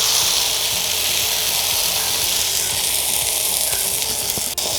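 Marinated chicken steak sizzling steadily on a hot, oiled grill pan, with a brief break in the sound about four and a half seconds in.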